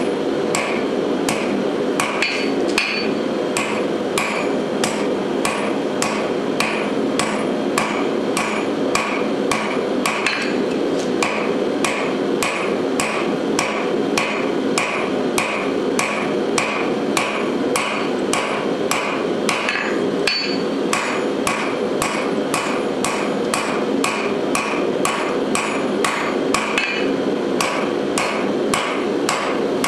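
Hammer blows on red-hot steel against an anvil, forging the bar's end into a faceted knob: an even rhythm of about two or three strikes a second, each with a short metallic ring. A steady noise runs underneath.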